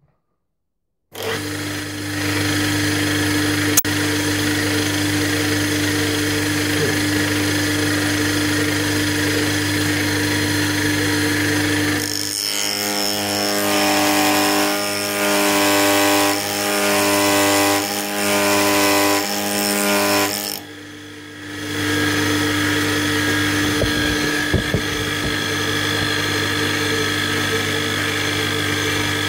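An old milling machine's spindle starts about a second in and runs with a steady hum. From roughly twelve seconds in, for about eight seconds, a homemade end mill with two APMT carbide inserts cuts a shoulder in cold-rolled steel with a pitched, pulsing chatter. The chatter is the sign of a cut too heavy for a machine and vice setup that is not rigid enough, so it produces too many vibrations. The sound dips briefly near the end of the chatter, then the steady spindle hum resumes.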